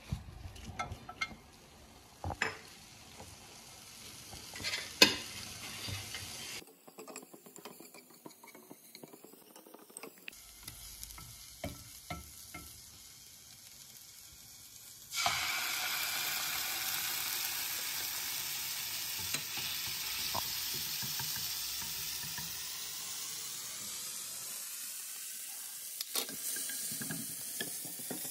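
Onion, tomato paste and shredded chicken frying in oil in a non-stick pan. There are first some sharp knocks and taps of bowl and utensils, then from about halfway a steady sizzle of hot oil, with the clicks of a spatula stirring near the end.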